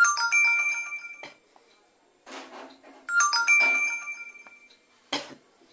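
A Realme C21y phone notification tone plays twice, about three seconds apart, as a preview of the newly set sound. Each time it is a quick run of bright notes that settles on one high ringing note and fades within about a second.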